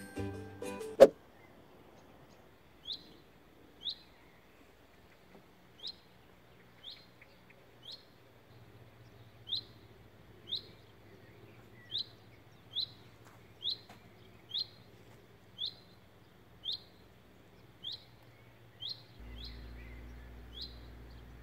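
A small bird repeating one short, falling chirp about once a second. Background music cuts off with a click about a second in, and a faint low hum comes in near the end.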